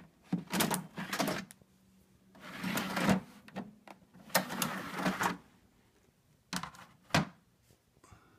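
A CED videodisc caddy being pushed into and drawn back out of the front slot of an RCA SelectaVision SFT100 videodisc player: three stretches of plastic sliding and scraping, then two sharp clicks near the end. This is the disc being loaded, the sleeve pulled out empty and the disc left inside the player.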